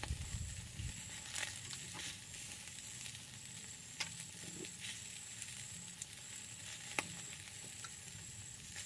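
Chicken sizzling faintly over a charcoal fire on a wire grill, with a few sharp clicks of metal tongs against the grill and steel bowls, the loudest about seven seconds in.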